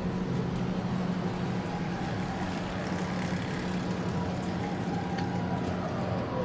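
Street ambience under a steady low mechanical hum, such as an idling vehicle engine, with no break or change.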